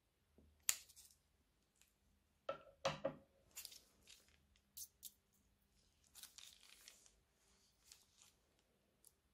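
Scissors snip the tip off a plastic piping bag with one sharp cut about a second in. The plastic bag then crinkles and rustles in short bursts as slime is squeezed out of it.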